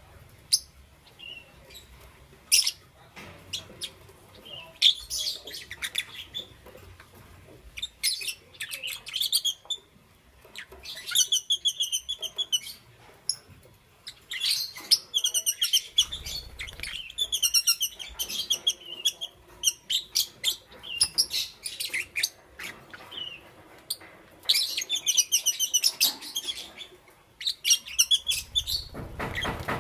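Lovebirds chirping: scattered high single chirps and several runs of fast repeated chirps lasting a second or two, with short pauses between.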